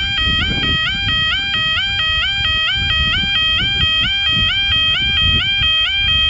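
Level crossing audible warning alarm sounding a rapid, repeating electronic two-tone warble, cutting off suddenly at the end. A low rumble runs underneath.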